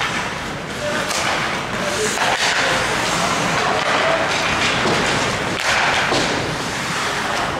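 Ice hockey play: skates scraping on the ice and sticks knocking the puck, with a few sharp thuds and short shouts from players.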